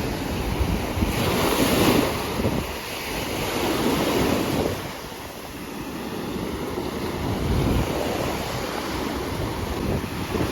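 Sea waves breaking and washing up on a beach, the sound swelling and ebbing, with wind buffeting the microphone.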